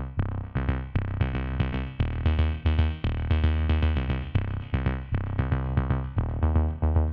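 Background music with a steady beat of quick notes, about three or four a second.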